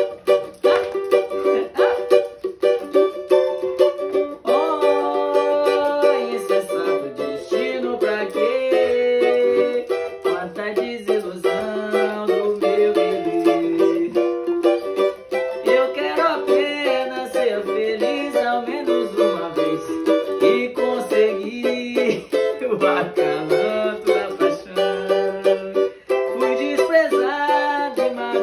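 Cavaquinho being strummed in continuous chords. From about four seconds in, a wordless voice glides up and down in pitch over it.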